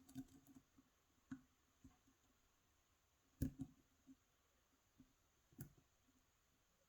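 Faint scattered ticks and clicks of a dimple pick working the pins inside an Abus/Pfaffenhain WavyLine dimple pin-tumbler lock, with two sharper clicks about three and a half and five and a half seconds in.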